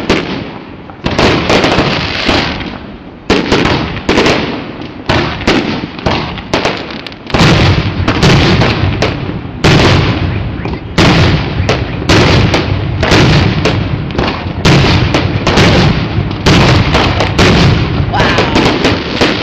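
Aerial fireworks shells bursting in quick succession, several sharp booms a second, each trailing off in a rumbling echo, with heavier low booms from about seven seconds in.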